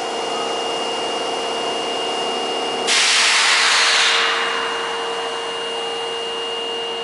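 Compressed air bursting out of a stopped Osaka Metro 22 series subway train: a loud hiss that starts suddenly about three seconds in and fades over a second or two. Under it runs a steady hum with a thin high whine.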